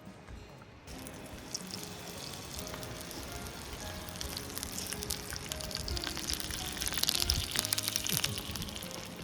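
Background music with food sizzling and crackling in a hot pan, coming in about a second in and growing louder.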